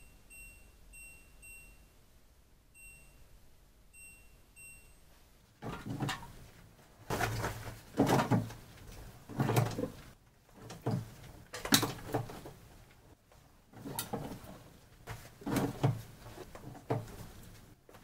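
Washing machine control panel beeping several times in short, high tones as its buttons are pressed. From about six seconds in, laundry is loaded into the drum: irregular fabric rustling and soft thumps.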